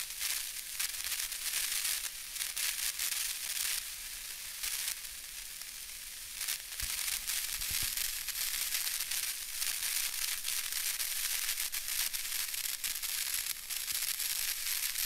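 A crackling hiss, mostly high-pitched, full of fine clicks and swelling and fading unevenly.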